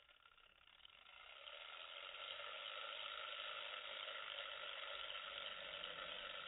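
Wind-up fan pen's spring-driven fan whirring, building up over the first couple of seconds and then running steady.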